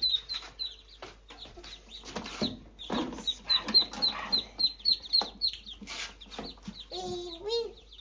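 Chickens clucking, with a steady run of short, high, falling peeps a few times a second and a few sharp clicks; a wavering pitched call comes near the end.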